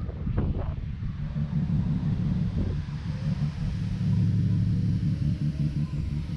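Nissan Skyline R34 25GT Turbo's RB25DET turbocharged straight-six idling steadily with a low, even hum.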